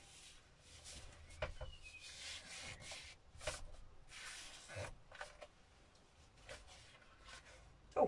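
Paint-soaked acrylic yarn being drawn out from between the folds of paper held flat under a hand: a run of uneven rubbing and scraping strokes of string and paper sliding against each other.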